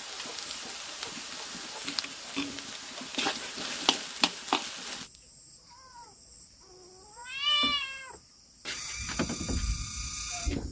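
Food sizzling in a hot pan while it is stirred, with sharp scraping clicks, for about five seconds. It cuts off suddenly; then an animal gives one long call that rises and falls in pitch. Near the end, a noisy outdoor hum takes over.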